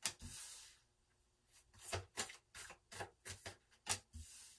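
Playing-size oracle cards being slid across a tabletop and laid down, with a soft sliding rub at the start, then about ten light clicks and taps of card handling over the next three seconds and another short slide near the end.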